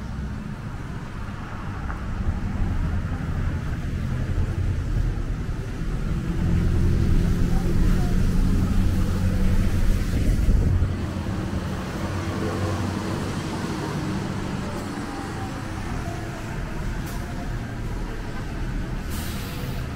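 Street traffic on wet pavement: a low engine rumble swells as a vehicle passes, loudest around the middle, over a steady hiss of tyres on the wet road. A short sharp hiss comes near the end.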